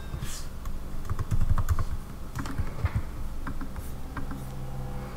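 Typing on a computer keyboard: a short run of key clicks, densest in the first three seconds.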